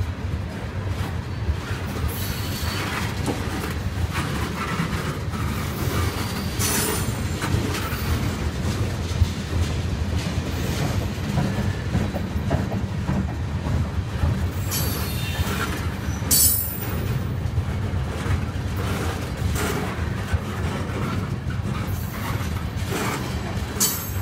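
Freight train cars rolling past: a steady low rumble of steel wheels on the rails, with high-pitched wheel squeals and clatter coming and going every few seconds.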